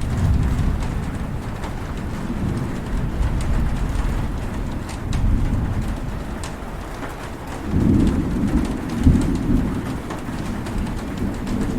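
Heavy rain falling steadily, with low rolling thunder that swells and fades, loudest about 8 to 9 seconds in.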